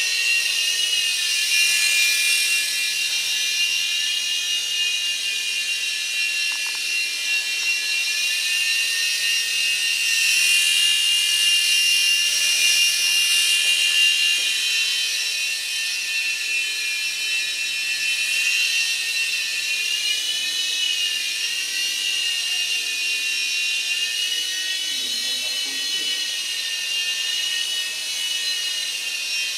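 Small electric RC toy helicopters flying, their motors and rotors giving a steady high-pitched whine that wavers up and down in pitch as the throttle changes.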